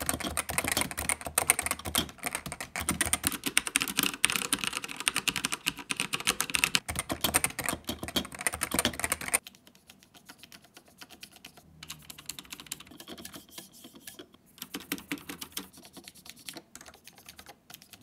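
Typing on a Topre Realforce RGB keyboard with Topre capacitive switches: fast, continuous typing for about nine seconds, then separate single key presses, more spaced out and quieter. The larger keys make no rattle, and the board sounds semi-quiet.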